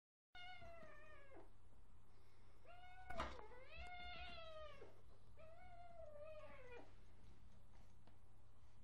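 Korat cat meowing: three long drawn-out meows, each falling in pitch at the end. A sharp knock comes about three seconds in, during the second meow.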